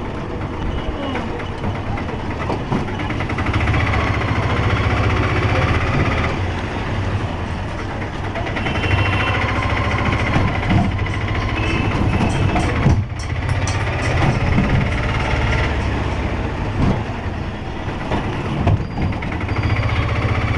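Tuk-tuk (auto-rickshaw) engine running as it drives along, heard from inside the passenger cab, its low hum rising and easing, with a few sharp knocks.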